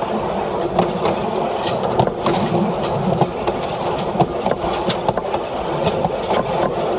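DP railcar running along the track: a steady rumble of engine and wheels, broken by frequent, irregular clicks and knocks from the wheels over the rails.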